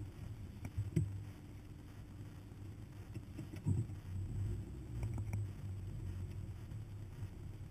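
Hummer engine running at low speed, a steady low rumble heard from a camera mounted on the hood, with a few knocks and thumps as the truck crawls over rough desert ground.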